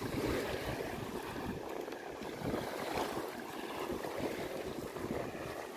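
Wind gusting over the microphone with small waves washing onto a sandy beach: a steady rushing noise with irregular low buffeting.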